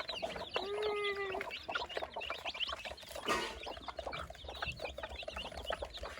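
Many chicks peeping, a dense stream of short, quick high chirps overlapping one another. About a second in there is one longer, lower call, and a brief scratchy rustle a little after three seconds.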